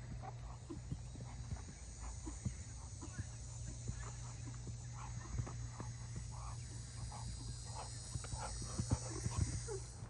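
Horse's hooves thudding irregularly on sandy arena footing, with a couple of louder knocks near the end. A steady low hum and hiss lie under it, and faint short sounds come from further off.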